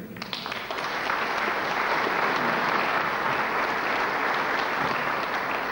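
Audience applauding, many people clapping together; it breaks out right at the start.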